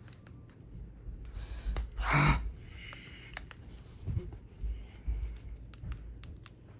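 Scattered sharp clicks over a low rumble, with one short, loud rush of breathy noise about two seconds in.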